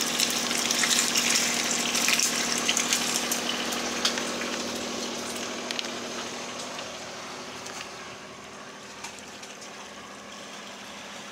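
Bacon sizzling in a frying pan, a dense hiss of fine crackles that fades away over the second half.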